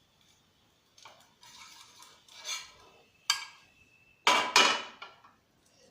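Metal kitchen utensils scraping and clinking against cookware: a stretch of scraping, then a sharp clink that rings on briefly, and two loud clanks in quick succession.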